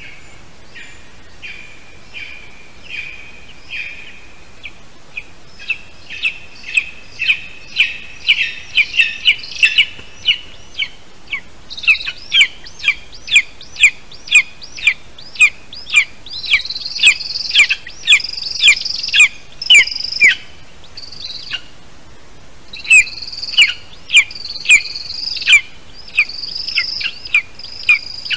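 Young eagle on the nest giving a long series of short, high-pitched chirping calls, about two a second. The calls start faint, grow louder and gain a higher note partway through, with a short pause near the end.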